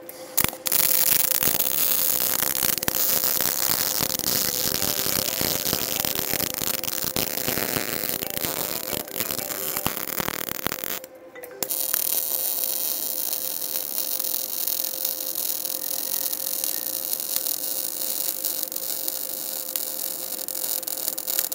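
MIG welding arc laying fillet beads on thin square steel tube: a steady crackling sizzle with a faint steady tone underneath. The arc stops for under a second about eleven seconds in, then strikes again for a second bead.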